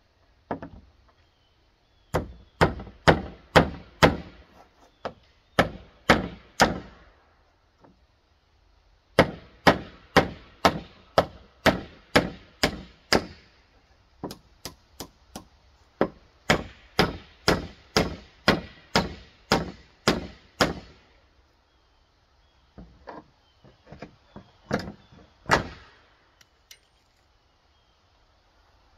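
Hammer driving nails into wooden boards: runs of sharp strikes, about three a second, with short pauses between runs.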